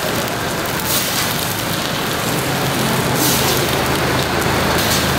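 Oil sizzling on a flat griddle as jeon (Korean vegetable pancakes) fry, a steady crackling hiss.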